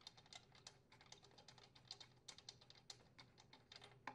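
Faint, irregular light clicks and ticks of a spark plug being unscrewed by hand from a Craftsman chainsaw's cylinder.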